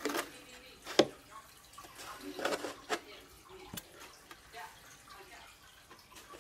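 Handling noise from repotting a root cutting: hands pressing potting soil into a cut-down plastic jug set in a foil tray, giving scattered sharp clicks, taps and rustles. The sharpest click comes about a second in, with a cluster of rustling taps a little later.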